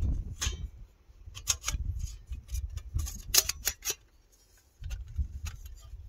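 Thin metal plates of an Otzi Gear Spark flat-pack fire grill clinking and scraping as they are slotted together: a string of irregular sharp clicks and taps over a low rumble, with a short lull about four seconds in.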